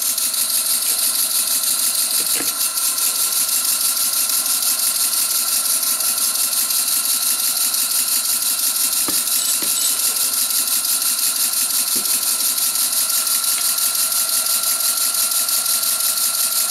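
Stuart S50 model steam engine running steadily on compressed air, its exhaust hissing in quick, even puffs, with a few faint clicks.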